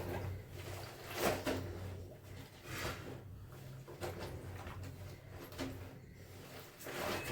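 Clothes being washed by hand: wet fabric scrubbed and rubbed in repeated swishing strokes, roughly one every second and a half, over a faint steady low hum.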